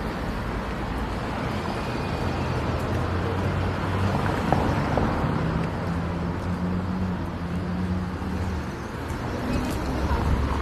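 A motor vehicle's engine running amid steady road-traffic noise, its low hum strongest through the middle of the stretch.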